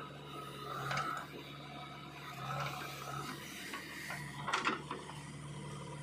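JCB 3DX backhoe loader's diesel engine running steadily while its backhoe bucket digs into dry soil, with scraping and clanking about a second in and a louder one about four and a half seconds in.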